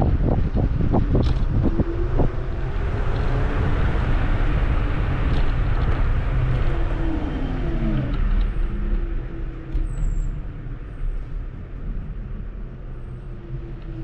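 Kugoo G2 Max electric scooter being ridden: wheel rumble and wind noise on the microphone, with a thin motor whine that falls and then rises in pitch as the speed changes. Several knocks from bumps come in the first two seconds, and a few faint high chirps can be heard in the second half.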